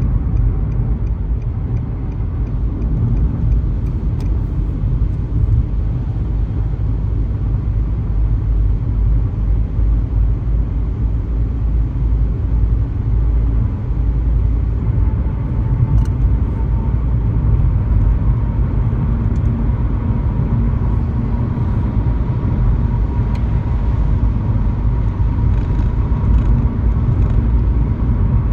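Car driving along a highway: a steady low rumble of road and engine noise, with a faint high hum coming in about halfway through.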